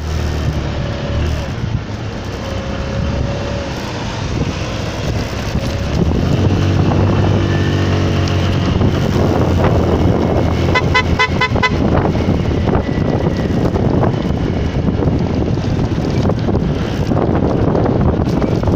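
Vehicle riding through city traffic: steady engine and road noise with some wind, the engine note rising about six to nine seconds in as it speeds up. About eleven seconds in, a horn sounds a quick run of about five short beeps.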